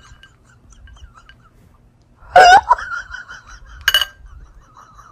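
A person's short burst of laughter about two seconds in, then a single sharp click about a second and a half later.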